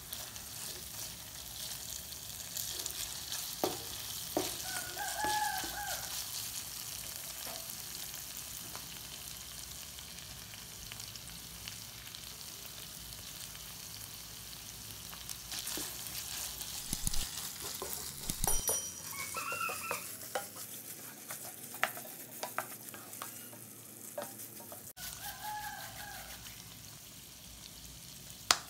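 Minced chicken frying and sizzling in oil in a non-stick kadai, stirred and scraped with a wooden spatula, with occasional knocks of the spatula on the pan. Three short calls in the background rise and fall in pitch, each about a second long.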